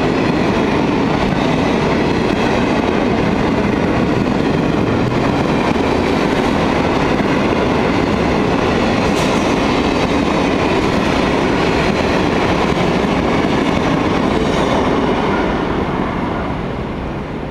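Freight train of grain wagons rolling past, a steady loud wheel-on-rail noise that dies away near the end as the last wagon clears.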